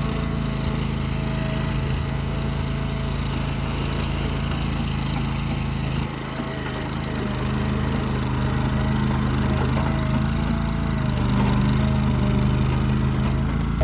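Small engine of a Struck MagnaTrac Hydro 5000 compact crawler dozer running steadily. There is a brief dip about six seconds in, and it gets a little louder later on.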